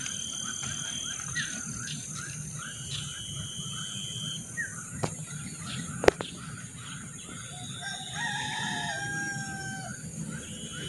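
A rooster crowing in a held call of about two seconds, beginning about eight seconds in, over a steady run of quick high chirps at about three a second and steady high whistling tones. A single sharp click about six seconds in is the loudest moment.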